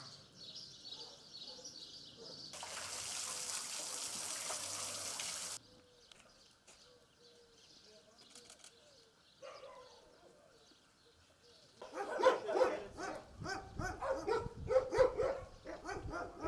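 A pack of shelter dogs barking and yelping over one another, starting about twelve seconds in. Earlier there is a steady hiss lasting about three seconds.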